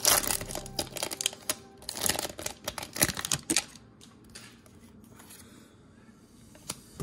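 Foil wrapper of a Pokémon TCG Brilliant Stars booster pack crinkling and tearing as it is ripped open and pulled off the cards by hand: a run of sharp crackles, loudest at the start and again about three seconds in, then only faint handling from about four seconds.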